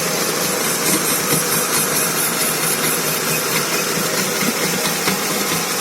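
Car engine running steadily with the driveshaft turning, a rattle and knock mixed in, which the owner traces to a worn CV joint with play on the shaft, the source of the crunch.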